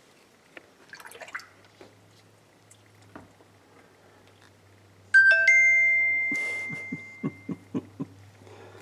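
A two-note chime rings out suddenly about five seconds in, the second note following close on the first, and fades away over about two seconds. As it fades comes a quick run of four or five short low knocks, about four a second. Before the chime there are only faint scattered clicks and rustles.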